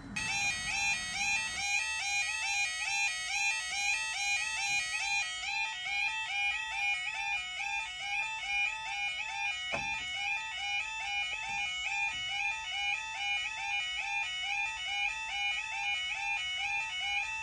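Level crossing audible warning alarm starting abruptly and sounding continuously as a rapid, repeating electronic warble: the signal that a train is approaching and the barriers are coming down. A single knock is heard about ten seconds in.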